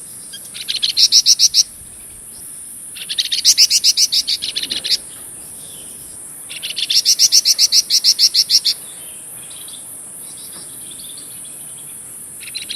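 Flamboyan songbird singing in rapid trills. There are three bursts of quick repeated notes, each one to two seconds long, and a fourth starting right at the end, over a steady high hiss.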